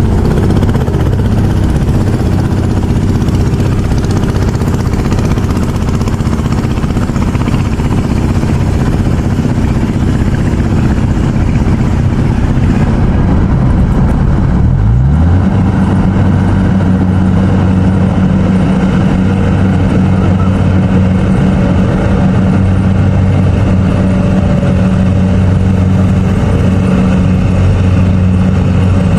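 Rice combine harvester engine running under load, steady, then speeding up about halfway through and holding at the higher speed.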